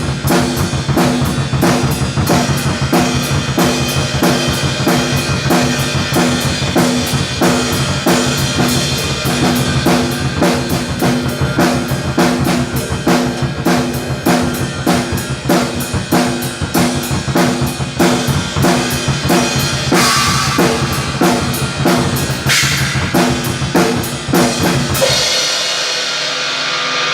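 Drum kit played in a fast, steady beat of bass drum, snare and cymbals, with pitched music underneath. About 25 seconds in the drumming stops and a ringing tail carries on to the end.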